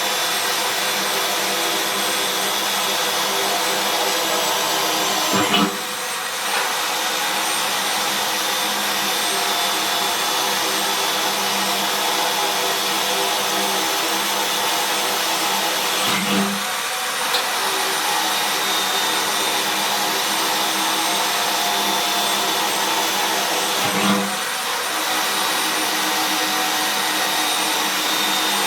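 Electric drill running steadily under load while drilling holes, its motor whine easing off briefly three times, about 5½, 16½ and 24 seconds in.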